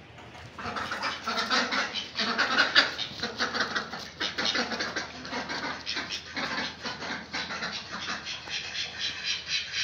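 Ducks quacking in a fast, continuous chatter that starts about half a second in, in a pen shared with chickens.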